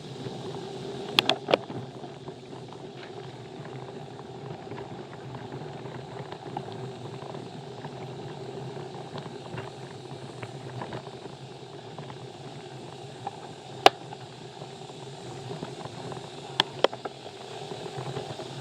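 Mountain bike being ridden along a trail: a steady rushing noise from the tyres and wind on the microphone, with sharp clacks of the bike rattling over bumps, a few about a second in, one loud one in the middle and two near the end.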